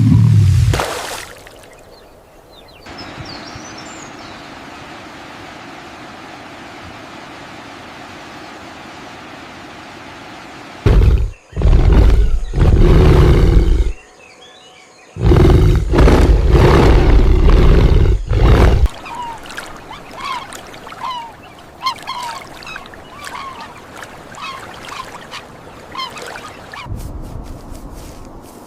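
A large animal's deep calls in several loud bouts: one at the start, then a group from about eleven to nineteen seconds in. They rise over a steady outdoor background, and short bird-like chirps follow in the later part.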